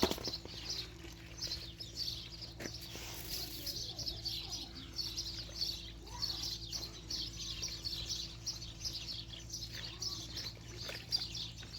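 Birds chirping steadily, a dense run of short, high chirps with a few faint clicks among them.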